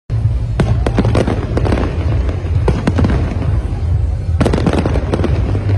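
Large aerial fireworks display: shells bursting in several rapid volleys of sharp bangs, over a continuous low rumble from the barrage.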